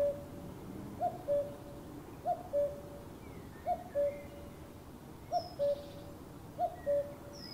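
Common cuckoo calling its two-note "cuck-oo", the second note lower and longer, repeated about every 1.3 seconds, with faint chirps from other small birds.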